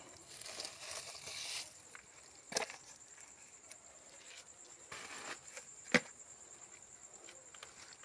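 Rustling handling noise with two sharp knocks, the louder one about six seconds in, over a steady high-pitched whine.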